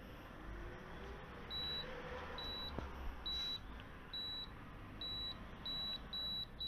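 Panasonic external fire-alarm tester beeping during an automatic fire alarm detector test: about eight short, high, identical beeps, roughly one a second at first and then coming faster near the end.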